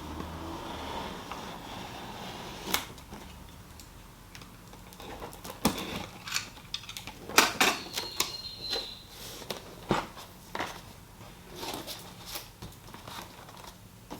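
Cardboard box and packaging of a sewing machine being opened and handled: irregular sharp clicks, taps and rustles starting a little under three seconds in, with a brief squeak about halfway through.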